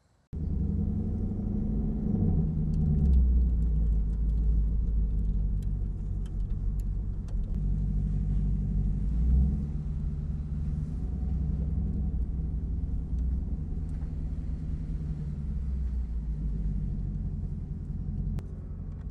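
2020 Ford Mustang V8 running through an exhaust with an H-pipe and resonator delete: a steady low rumble that starts suddenly, with the note rising briefly a few times.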